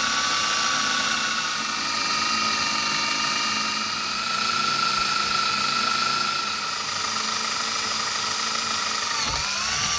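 Electric drill running steadily with a high whine while drilling pilot holes through aluminum flat stock; its pitch sags briefly near the end.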